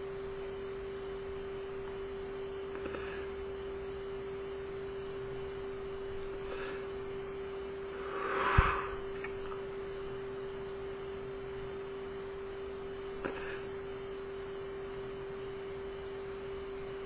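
Soft breaths of a person vaping an e-cigarette atomizer: faint drags, then a long exhale of vapour about eight seconds in with a sharp click at its peak. A steady hum runs underneath throughout, and there is a light click later on.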